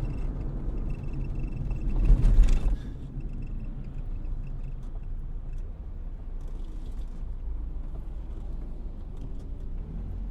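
Low steady rumble of road traffic, swelling louder for a moment about two seconds in.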